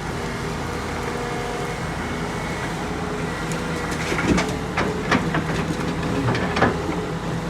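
Heavy diesel engine of earthmoving machinery running steadily, with a quick series of sharp clanks and knocks from about four seconds in to near the end.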